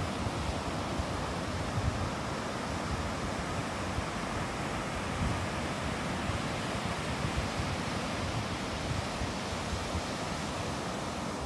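Ocean surf washing onto a beach, a steady rush of breaking waves, with wind on the microphone.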